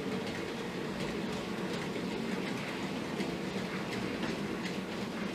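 OO gauge model diesel locomotive's DCC sound decoder playing a steady diesel engine sound through its small onboard speaker.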